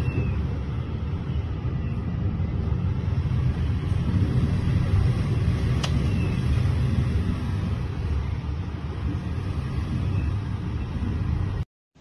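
Strong typhoon wind blowing, a steady low rumble that keeps up without let-up, with a single sharp click about six seconds in. It cuts off suddenly near the end.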